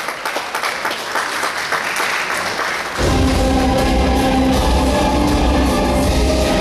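Audience applauding over quieter music for the first three seconds, then the backing rock music comes back in full and loud, with heavy bass.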